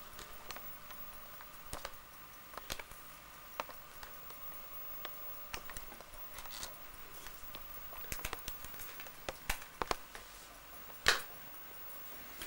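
Scattered light clicks and taps of small objects being handled by a child, over a faint steady hum; the sharpest click comes near the end.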